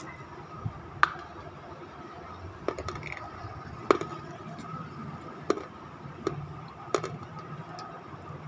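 Close-up crunching as a dry white chalky lump is bitten and chewed: several sharp, crisp crunches about a second apart, the loudest about a second in, near the middle and near the end.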